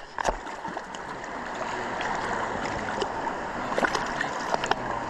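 Flowing stream water making a steady rushing hiss, with a few faint clicks in it.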